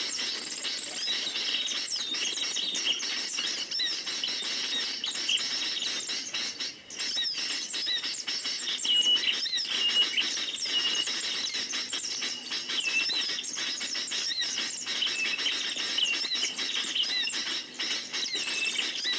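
A flock of many small birds chirping and squeaking together, a dense, continuous chatter of short high calls overlapping one another.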